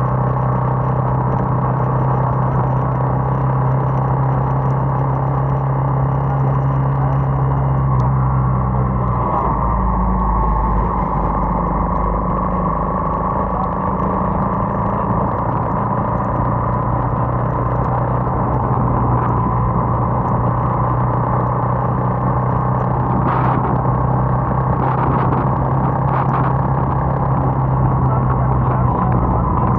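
Bajaj motorcycle's engine running while riding, with wind and wet-road noise. The engine note shifts about nine seconds in, then settles again.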